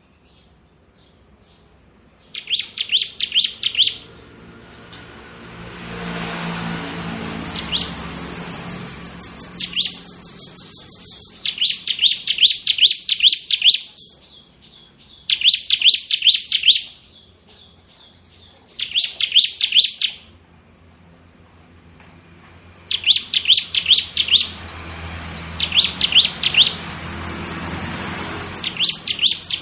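Bar-winged prinia (ciblek) singing its rapid, drill-like 'ngebren' song: short bursts of very fast trilled notes, each about a second and a half long, repeated with brief pauses and some higher, thinner trills in between. A low rushing noise rises behind the song twice.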